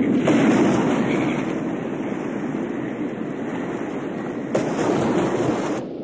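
Heavy ocean waves breaking and churning into spray, with a loud surge about a third of a second in and another about four and a half seconds in; the rush cuts off suddenly near the end.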